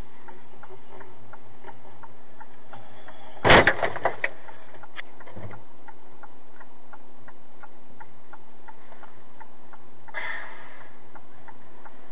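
A sudden loud bang with a few quick rattling knocks after it, heard from inside the car cabin: another vehicle striking the car. Under it, a steady ticking of about two to three ticks a second, like a running turn signal.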